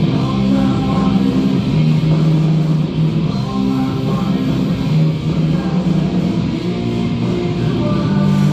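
Rock music with electric guitar playing steadily, from a radio.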